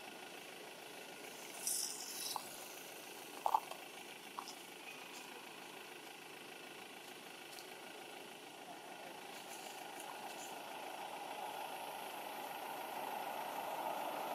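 A motor vehicle's engine running steadily, growing louder over the last few seconds. A short hiss comes about two seconds in, and a sharp click at about three and a half seconds.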